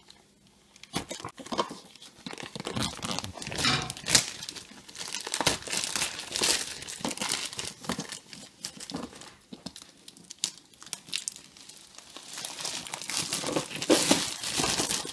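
Plastic packaging crinkling and rustling in irregular bursts, starting about a second in, as a boxed tool case is handled and pulled out of its plastic mailing bag and film wrap.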